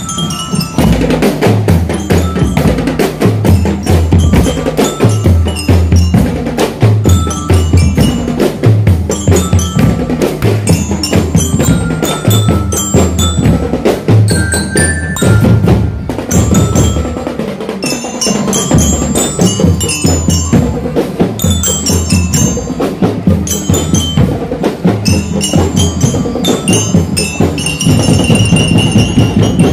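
Marching drum band playing: Harrier bass drums beat a steady, even rhythm under a ringing melody of short notes on marching glockenspiels (bell lyres).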